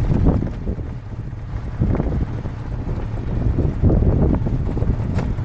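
Wind buffeting the microphone: a low, gusty rumble that swells and eases several times.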